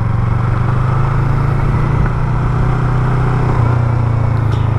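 Yamaha MT-03 motorcycle engine running at an even, steady pitch while riding slowly on a dirt road, with a rush of wind and road noise over it.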